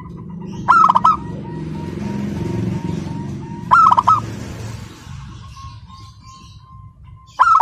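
Zebra dove (perkutut) singing its cooing song: three phrases about three and a half seconds apart, each a quick run of short coos. A low rumble lies beneath the first half.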